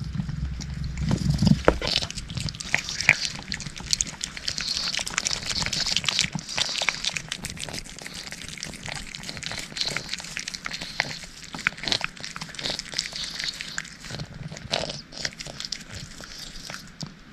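Close-miked cat eating: rapid, irregular wet licking and smacking clicks that carry on throughout. A low rumble runs under them for the first couple of seconds.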